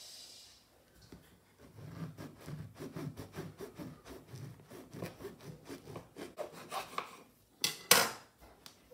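A knife sawing back and forth through a crusty homemade loaf on a wooden chopping board, about two or three strokes a second, the crust rasping. Near the end come two loud sharp crunches as the blade breaks through the crust.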